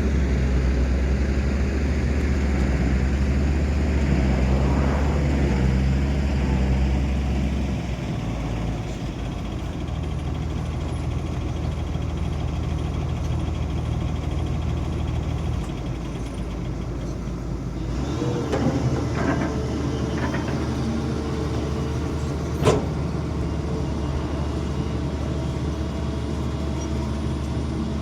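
Excavator's diesel engine running steadily, its note changing a few times as the load shifts while it digs and loads soil. A sharp metallic clank sounds about three-quarters of the way through.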